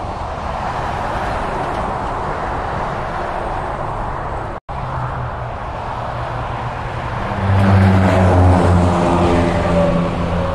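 Interstate highway traffic going by: steady tyre and engine noise of cars and tractor-trailers, broken by a brief dropout about halfway through. In the second half a heavy diesel truck engine passes close, louder, with a low pitched hum.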